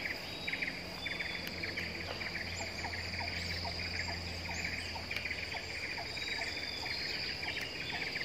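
Tropical forest ambience of insects: a steady high-pitched drone with dense, rapid chirping trills over it. Through the middle a short rising call repeats about two to three times a second.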